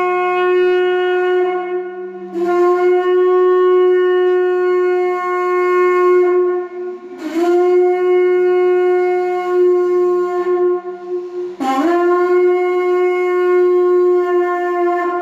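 Conch shell trumpet blown in long held blasts on one steady note, full and brassy. It breaks off and starts again about two, seven and twelve seconds in, each new blast sliding up into its pitch.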